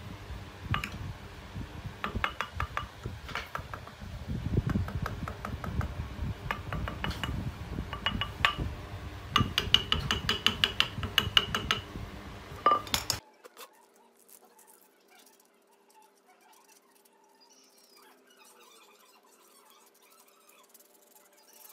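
Small hand chisel cutting and scraping into a hardwood carving: a quick, uneven run of short sharp clicks and scrapes, some with a faint ring. It stops abruptly about two-thirds of the way through, leaving only faint soft rustles.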